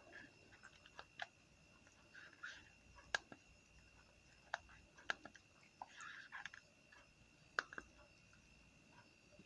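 Faint handling of a plastic-packaged blood glucose meter kit: a few sharp clicks a second or two apart and brief rustles, over a faint steady high-pitched tone.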